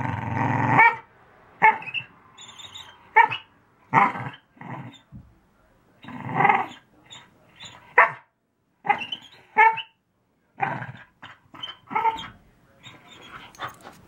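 A pit bull–basenji mix dog making a string of weird vocal noises: over a dozen short calls, one after another with brief gaps between them.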